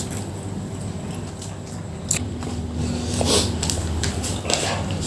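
Close-up eating sounds of a person chewing a mouthful of nasi padang: a click about two seconds in, then wet chewing and mouth noises in short bursts, over a steady low hum.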